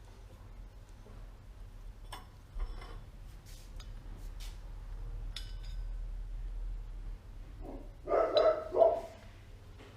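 A dog barks three times in quick succession near the end. Before that there are scattered light clicks over a low steady hum.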